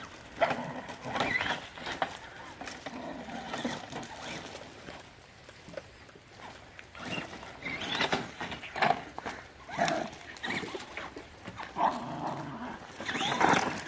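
A dog whining and yelping excitedly in short calls, amid scuffling and knocks.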